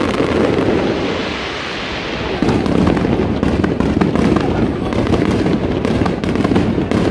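Aerial fireworks going off in a dense run, turning louder about two and a half seconds in with rapid crackling and popping.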